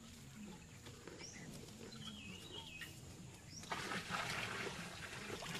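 Faint rural outdoor ambience with a bird calling, a short wavering chirp about two seconds in, then about three and a half seconds in a louder rush of water starting to pour from a pot into a cattle trough.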